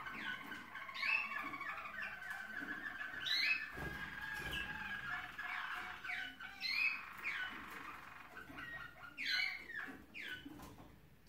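Waterslager (Malinois) song canaries singing: a continuous rolling, trilled song with repeated sharp falling whistled notes.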